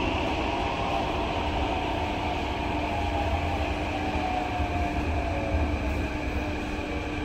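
Inside a T251 metro train running towards a station: a steady rumble of wheels and running gear, with a faint traction-motor whine that slowly falls in pitch as the train slows.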